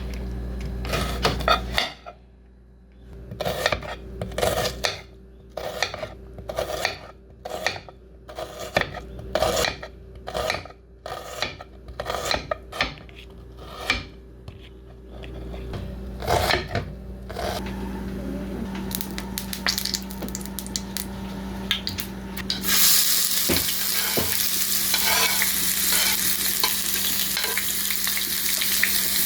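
A run of kitchen knocks from a utensil, about two a second, which stops. Then food starts sizzling loudly in hot oil in a pan near the end.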